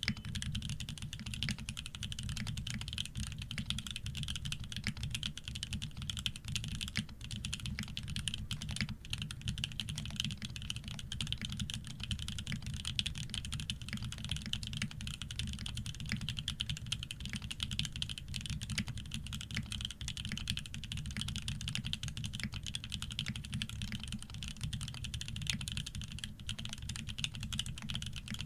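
Continuous typing on a Shark60 custom mechanical keyboard with lubed OP Black switches, heavy 150 g springs, an aluminium plate and PBT keycaps: a steady stream of rapid keystrokes without a pause.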